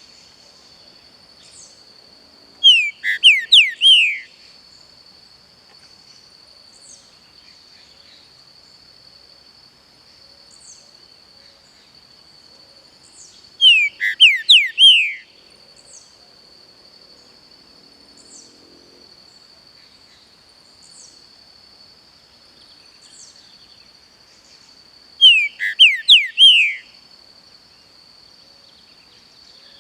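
Pixarro (green-winged saltator) singing three loud phrases about 11 seconds apart, each a quick run of four or five downslurred whistled notes. Under them run a steady high insect drone and faint, scattered calls of other birds.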